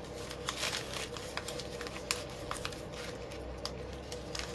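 Poly ribbon crinkling and rustling in short, irregular crackles as the loops of a bow are pulled out and fluffed by hand.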